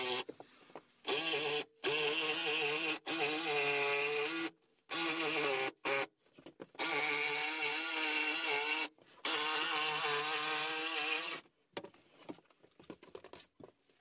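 Jigsaw cutting through a kitchen worktop, its motor running in several runs of one to two seconds, each stopping abruptly, the pitch wavering as it cuts. A few faint knocks near the end.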